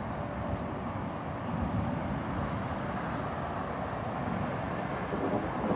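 Low, steady rumble of distant thunder, swelling slightly about a second and a half in.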